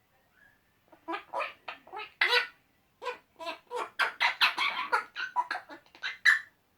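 Male eclectus parrots making silly noises at each other: a quick run of short, choppy calls that starts about a second in and stops abruptly near the end.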